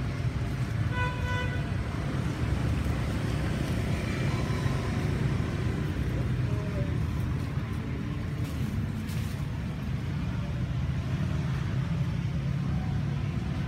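Steady low rumble, with a short high beep about a second in.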